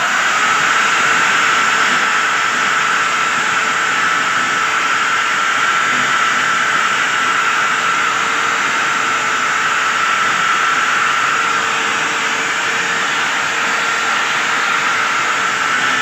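Corded electric drill with a wire cup brush switched on suddenly and running steadily against rusted refrigerator sheet metal: a steady high whine over a dense scratching hiss. The brush is stripping the rust to bare metal before repainting.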